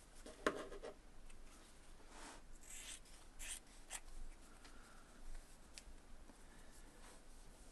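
Faint rustling of small cotton fabric pieces being handled and folded on a tabletop, with a light click about half a second in and a few soft brushing sounds after.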